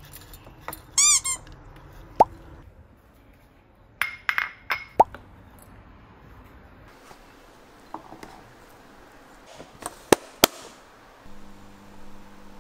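Dry cat kibble poured from a plastic scoop into a ceramic bowl, heard as a handful of sharp clicks and clinks, with a short cat meow about a second in. Near the end a microwave oven starts a steady low hum.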